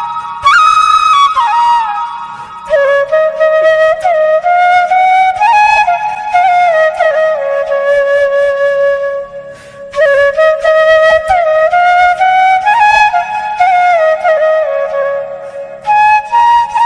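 Background music: a flute playing a single melodic line that slides between notes, with a brief pause about halfway through.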